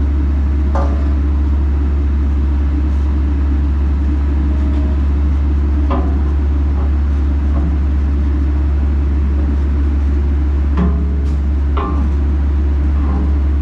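Bobcat E85 excavator's diesel engine running with a steady low drone. A few light knocks of the machine sound on top: about a second in, around six seconds, and twice near the end.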